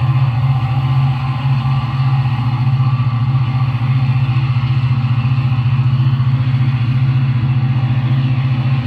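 HO scale model diesel locomotive running on the layout: a steady low diesel-engine drone with a fast, even pulse and no change in pitch.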